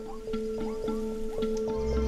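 Background music: two held tones with short repeated notes over them, about four a second, and a low bass swell coming in near the end.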